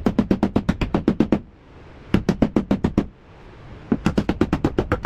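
Rapid metal-on-metal hammering, about nine sharp blows a second in three bursts with short pauses between, beating metal back to make clearance for the new 3-inch exhaust.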